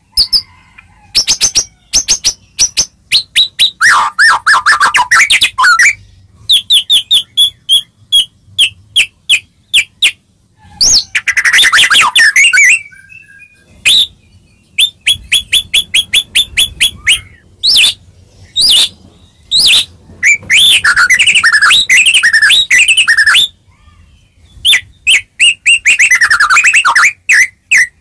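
White-rumped shama (murai batu) singing a loud, varied song: fast runs of sharp, clipped notes and repeated clear whistles, broken by several rich warbling phrases and short pauses.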